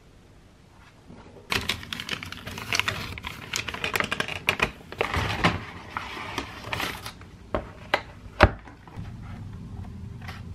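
Paper delivery bag rustling and crinkling as a hand reaches in and pulls out a takeaway container, then a few sharp taps, the loudest about eight and a half seconds in, as the plastic container is set down on the countertop.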